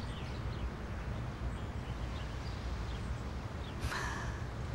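Outdoor background ambience: a steady low rumble with faint bird chirps, and a woman's short crying sob about four seconds in.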